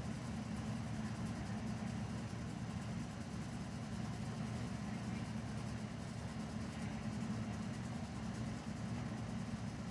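A steady low hum like an engine idling.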